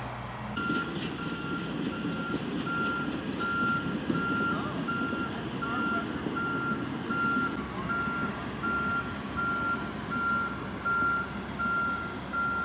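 Large excavator's travel/backup alarm beeping steadily, about two beeps a second, over the machine's engine running. A quick rattling, about four ticks a second, sounds for the first few seconds.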